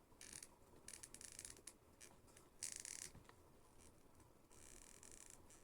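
Faint scraping and rubbing of a small collectible figure being worked onto its display stand by hand, in several short bursts, the loudest about two and a half seconds in.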